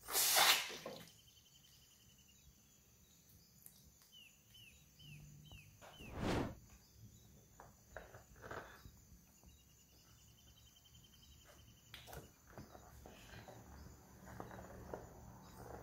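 Scissors snipping open a water balloon over a plastic bowl: a loud, sharp snip in the first second. About six seconds in there is a second loud knock, and faint series of high chirps come and go in the background.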